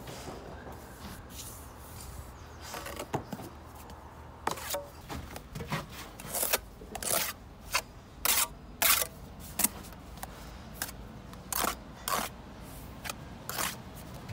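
Steel trowel scraping and spreading mortar on concrete blocks: a string of short, irregular scrapes as mortar is laid on the course and the block ends are buttered.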